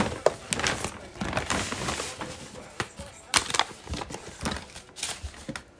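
Gift bag, card and toy box being handled: rustling with a run of irregular knocks and taps.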